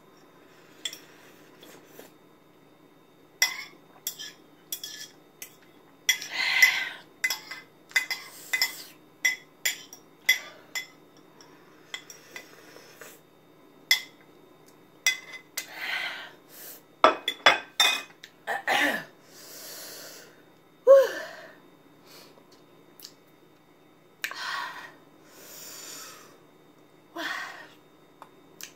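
Eating a bowl of extremely hot Korean fire noodles: utensils clicking and clinking against the bowl, with breaths from the spice burn between mouthfuls and a few short falling vocal sounds about two-thirds of the way in.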